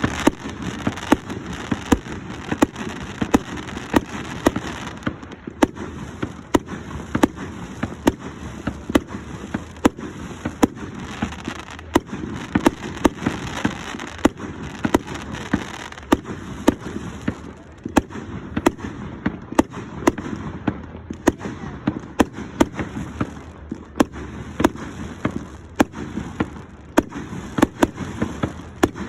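Fireworks display going off without pause: sharp bangs about twice a second over a steady crackle.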